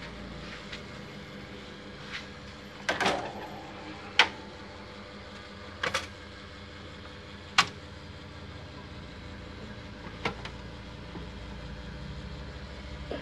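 Sharp plastic and metal clicks and clacks of a photocopier's covers, latches and parts being handled, spaced one to three seconds apart, the sharpest about four seconds in. A steady low hum runs underneath.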